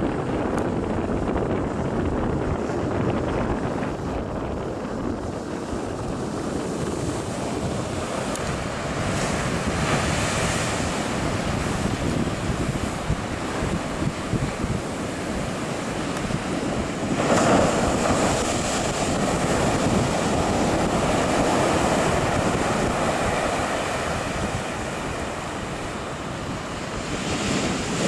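Ocean surf breaking on a sand beach and against the rocks of a jetty, a steady rushing wash with wind buffeting the microphone. A bigger wave crashes a little past halfway through.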